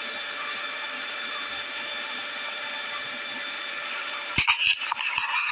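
Steady hiss with faint thin high tones, then a burst of sharp clicks and rustling about four and a half seconds in.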